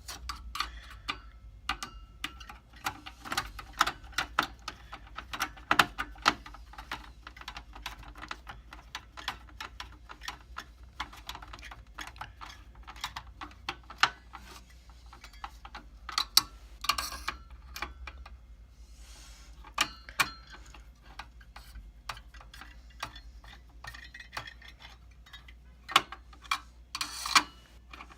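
Irregular clicks, taps and knocks of metal and plastic parts being handled inside a server case while a CPU heatsink is fitted, over a low steady hum.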